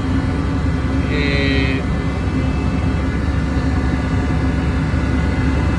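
Trawler's engine running with a steady low drone and a constant hum.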